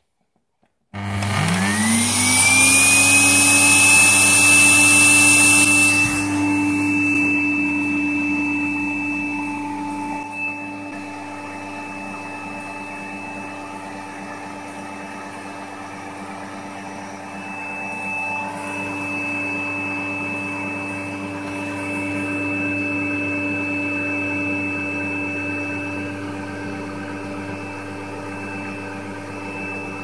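Canister vacuum cleaner motor switched on and spinning up with a rising whine that settles within a few seconds, then running steadily while it pulls air through a homemade cyclone separator. There is a loud rush of air for the first few seconds, after which the air rush drops and the motor runs on more quietly.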